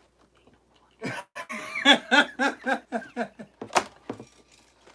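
Men laughing hard in a quick run of bursts, starting about a second in, with one sharp cough-like burst near the end.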